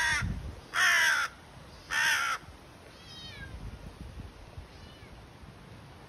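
A crow cawing three harsh calls about a second apart, followed by a couple of faint, thin, falling chirps from a smaller bird.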